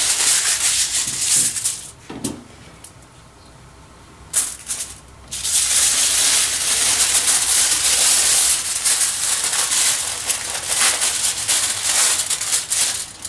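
Aluminium foil crinkling and rustling as it is folded around a food parcel and pulled off the roll. It drops to a quieter patch about two seconds in, with one sharp crackle, then crinkles loudly again until the end.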